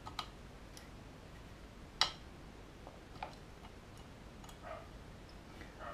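Scattered light clicks and ticks of a small screwdriver and tweezers on a tiny screw being driven back into an O gauge model locomotive's bogie, with one sharper click about two seconds in.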